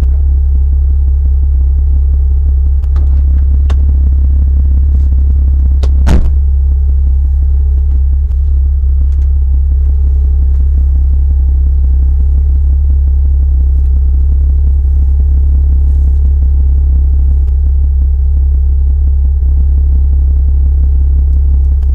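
Steady, loud, low rumble of a vehicle's engine and drivetrain heard from inside the cabin, with a sharp knock about six seconds in and a couple of fainter knocks just before it.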